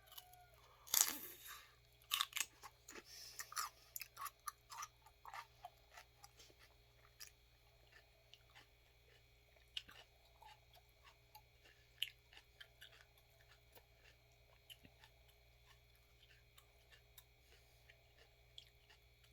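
Dog chewing and crunching a piece of celery: a quick run of crisp crunches over the first several seconds, thinning to scattered faint clicks.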